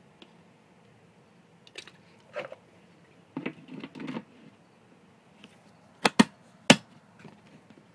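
Handling noises in a small room: a few soft clicks and a scraping rustle, then three sharp knocks near the end, two close together and a third about half a second later.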